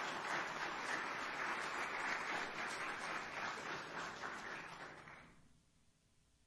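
Congregation applauding, a dense patter of many hands clapping that dies away about five seconds in.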